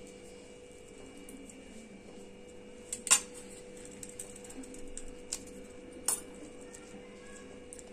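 Hands stuffing okra pods with a dry peanut-spice filling from a stainless steel bowl, with a sharp clink against the steel about three seconds in, another about six seconds in, and a few lighter ticks between. A steady low hum runs underneath.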